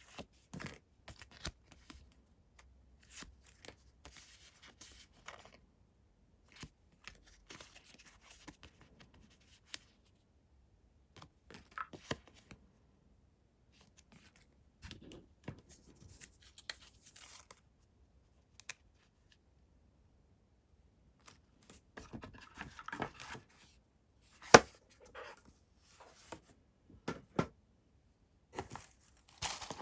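Blind-box packaging being torn open and rustled by hand, in bursts with short pauses, among scattered small clicks and taps. One sharp click a little past two-thirds of the way through is the loudest.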